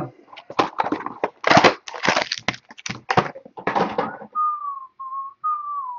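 Cardboard and foil trading-card packaging being handled and crushed, a dense run of crinkles and crackles. About four seconds in, a person whistles three short notes, each sliding slightly down in pitch.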